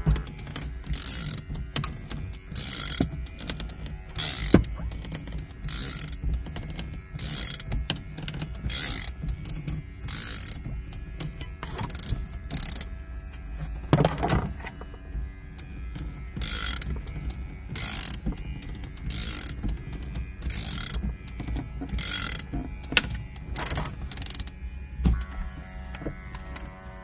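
Ratchet winder of a windshield cut-out wire tool worked in repeated strokes, a short rasping burst about every second and a half, as it reels in the wire cutting through the urethane. Near the end a steady electric hum starts, a powered suction cup's vacuum pump, which changes pitch once it has full suction.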